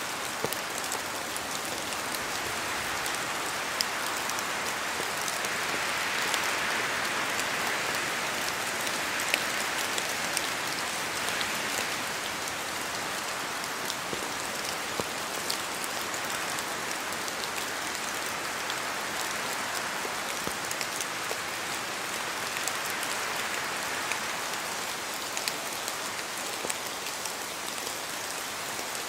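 Steady rain falling in a forest, with many sharp ticks of drops falling from the trees. The hiss swells and eases with the wind, most strongly about a quarter of the way in.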